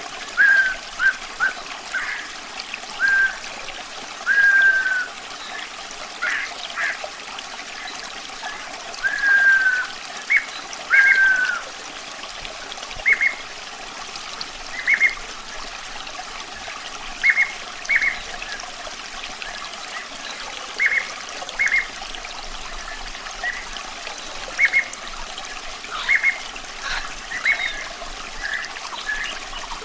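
Running water trickling steadily, with a songbird calling over it: short whistled notes every second or two, and a few longer falling whistles in the first dozen seconds.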